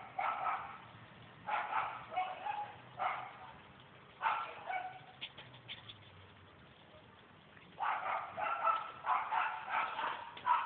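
A small dog giving short yips and barks in clusters: a few near the start, single ones around two, three and four seconds in, then a quick run of them from about eight seconds in.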